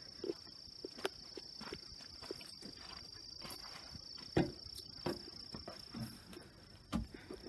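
Steady high-pitched trill of crickets, with a few footsteps and knocks as someone climbs the steps into a canvas camper trailer. The loudest knocks come about four and a half and seven seconds in.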